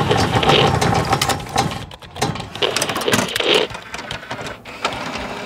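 Sound effects for an animated logo intro: a rapid, irregular run of clicks and ticks with a few short swelling whooshes.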